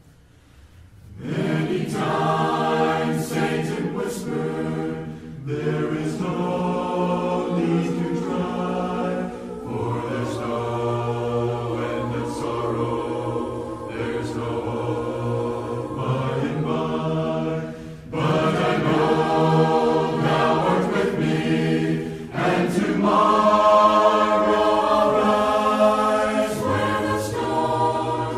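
Background choral music: a choir singing sustained harmonies in phrases, starting about a second in after a brief pause.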